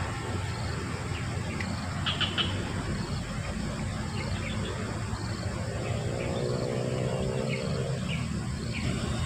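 Birds chirping in short calls every second or two over a steady insect buzz and a low hum. A faint droning tone comes in about six seconds in and fades away about two seconds later.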